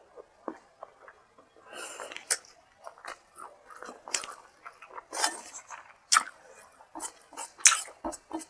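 A person chewing and smacking a mouthful of rice and hilsa fish curry, with irregular wet mouth clicks and short bursts of chewing noise.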